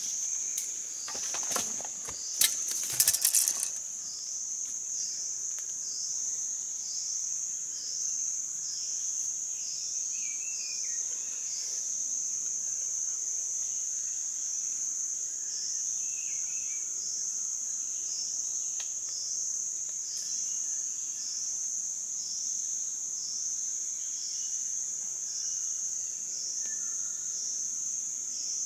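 A high-pitched insect drone that pulses regularly, about three beats every two seconds. A short burst of loud rustling and clattering comes about two to three seconds in.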